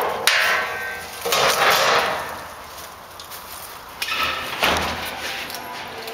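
Metal scrap frames clattering and scraping as they are handled and carried, in a few short rattling bursts with knocks.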